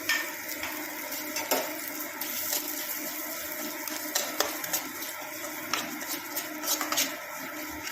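Dalia (broken wheat) frying in ghee in a kadai: a steady sizzle, with a spoon scraping and clicking against the pan many times as the grain is stirred.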